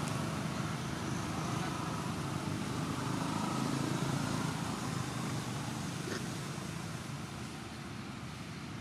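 Steady low rumble of outdoor background noise, a little louder in the first half and easing off later, with a single faint click about six seconds in.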